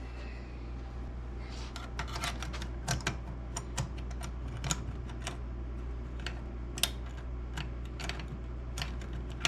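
Small metal parts of a pinball drop target assembly clicking and tapping irregularly as they are fitted together by hand, over a steady low hum.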